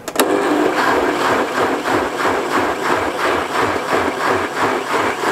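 Electric blender switched on with a click and running loudly, its blade churning grated raw mango with water into juice in a plastic jar, with a regular pulsing in the whir.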